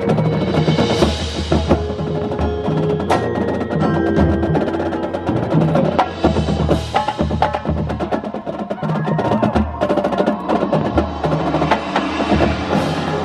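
Marching band playing, with the drums and the front ensemble's mallet percussion prominent: many sharp drum and mallet strikes over held band chords.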